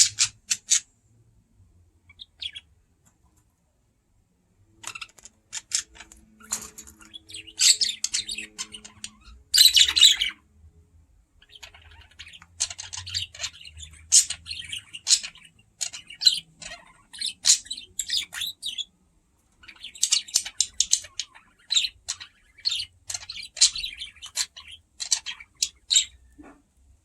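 Pet budgerigar (parakeet) chirping in dense bouts of short, high chirps, with a pause of a few seconds near the start.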